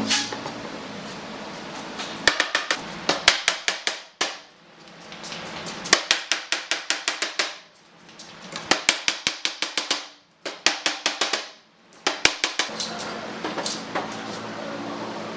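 Mallet striking a wooden block to drive the table's apron frame down onto the leg joints, in quick runs of sharp knocks, several a second, each run lasting a second or two with short pauses between.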